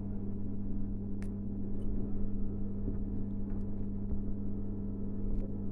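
Steady low electrical hum from the repair bench's mains-powered equipment, with a few faint light clicks of tools touching the board.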